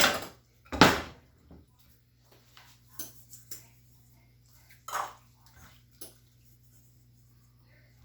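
Utensil knocking and scraping against a baking dish while raw chicken breast pieces are mixed with dressing: a handful of separate clatters, the loudest about a second in.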